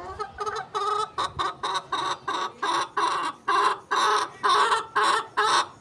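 Hen clucking in a steady run of short, evenly spaced calls, about three a second. The owner takes the calls as a sign she is about to lay her first egg.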